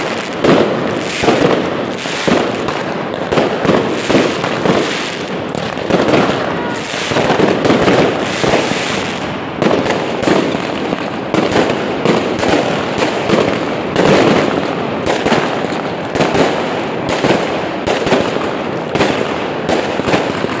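Aerial fireworks bursting overhead in a dense, continuous barrage of bangs, several a second.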